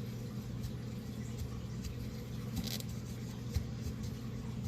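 Faint scraping and squishing of spackle being worked into a beadboard seam by hand, over a steady low hum.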